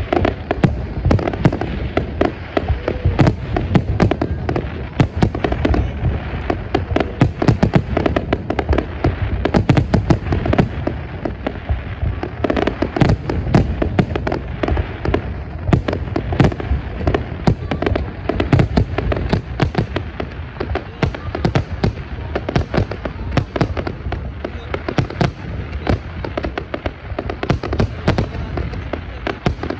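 Aerial fireworks display: a dense, continuous barrage of bangs and crackling bursts, several a second, with no pause.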